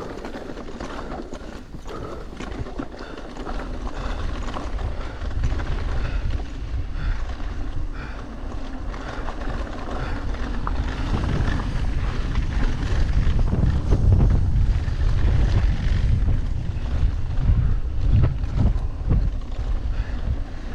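Mountain bike riding down a rocky dirt trail, its tyres crunching over loose rock and the bike rattling with many short clicks. From about halfway on, a heavy low wind rumble on the action camera's microphone takes over and grows louder as the bike rolls fast down a smooth, wide dirt road.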